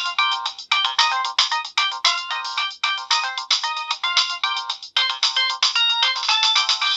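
Nokia 7650 stock ringtone playing: a fast electronic melody of short, bright notes, several sounding at once. It has a brief gap about five seconds in before the tune carries on.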